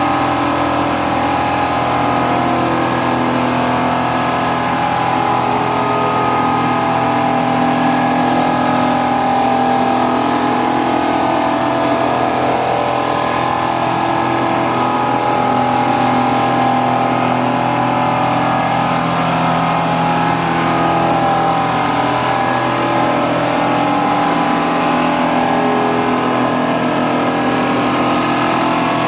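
Large Richpeace quilting sewing machine running steadily: a continuous motor hum made of several tones that shift in pitch from time to time.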